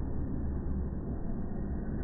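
Low, steady rumble with no separate sounds standing out. It is the slowed-down background sound of a moving tugboat amusement ride, so everything sits deep in pitch.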